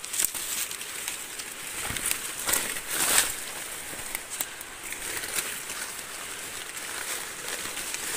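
Rustling and crackling of dry leaf litter and undergrowth as a person moves through forest, with scattered sharper crackles about 2.5 and 3 seconds in. A steady high insect drone runs underneath.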